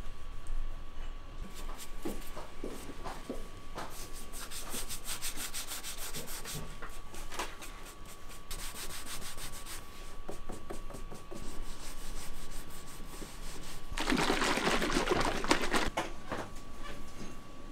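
Sandpaper rubbing over the cut edges of a stack of leather belt blanks held in a wooden jig, in quick back-and-forth strokes that smooth the edges. A louder burst of noise lasts about two seconds near the end.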